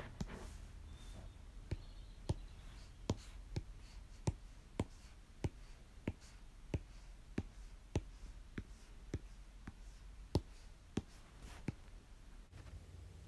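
Light, sharp taps on an iPad touchscreen while working in the layers panel, about one and a half a second, evenly spaced, stopping a little before the end.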